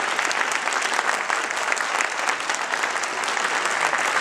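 Audience applauding steadily: many hands clapping in a dense, even spread of claps.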